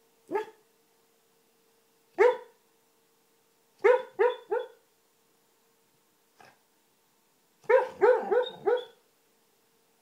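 Dog barking in its sleep during a bad dream: short yipping woofs, singly at first, then three in quick succession, and a run of four or five near the end.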